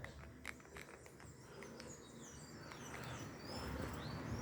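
Faint bird chirps, a series of short high chirps growing more frequent in the second half, over a low steady background, with a couple of soft clicks near the start.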